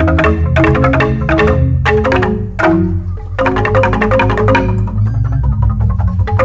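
Balinese jegog bamboo gamelan: rows of bamboo-tube xylophones struck with mallets in fast interlocking patterns over deep, sustained bass notes. About two seconds in the fast striking thins to a few ringing notes, then resumes in full about a second later.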